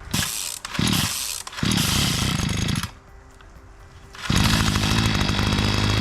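Small gas engine of a post-hole auger revving in bursts, dropping back to a low idle, then revved up hard and held steady about four seconds in.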